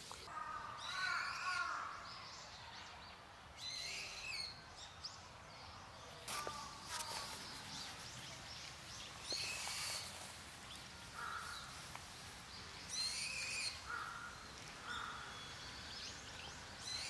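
A bird calling outdoors: short, harsh calls repeated every one to three seconds, about eight in all, over faint background noise.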